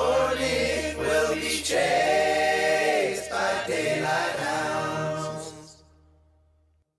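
Background music of sung voices over a low steady drone, fading out about five and a half seconds in; silence after.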